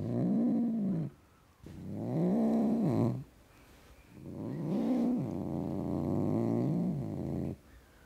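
Tom cat growling hard: three low, drawn-out growls with short pauses between them, the pitch rising and falling within each. The last growl is the longest, about three seconds.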